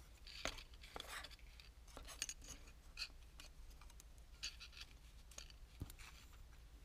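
Faint, scattered small clicks and light scraping as clear plastic model-car window pieces, held in metal alligator clips on sticks, are handled and slid about on paper.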